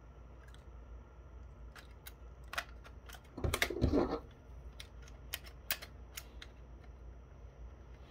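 Small sharp clicks and taps from hands handling the plastic housing of a partly disassembled digital camera and a small screwdriver, with a louder clatter of clicks about halfway through.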